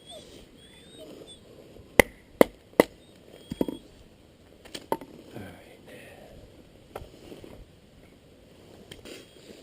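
Wood being split with hard, sharp blows: three quick knocks about half a second apart, then a few more spaced out over the next several seconds.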